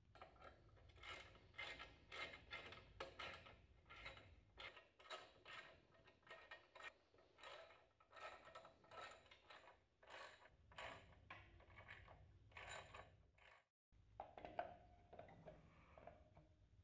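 Socket ratchet wrench clicking in quick repeated strokes as it turns the front axle nut of a motorcycle, faint, stopping near the end.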